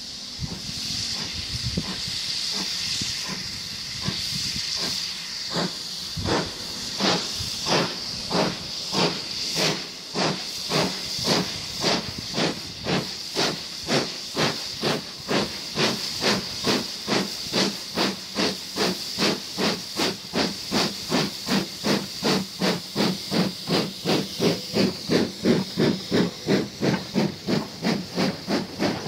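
BR Standard Class 2MT 2-6-0 steam locomotive No 78022 pulling away and accelerating toward and past, its exhaust chuffs starting about six seconds in and quickening from about two to three a second as they grow louder. A steady hiss of steam runs beneath, and the engine passes close near the end.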